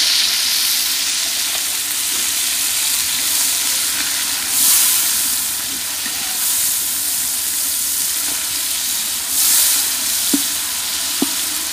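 Onion, tomato and spice masala sizzling in a large aluminium pot over a wood fire, a little water just added, stirred with a wooden spatula. The steady hiss swells twice as it is stirred, and two light knocks come near the end.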